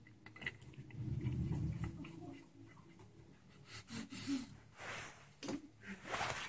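Hands rubbing and scraping as a wood screw is turned in by hand through a rifle butt plate into the stock's freshly dowelled and re-drilled screw hole. There is a low handling rumble about a second in and a few short scratchy noises in the second half.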